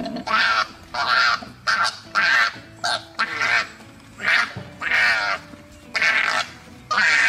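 Koalas screaming in a fight: a series of about eleven short, wavering screams, one every half second or so.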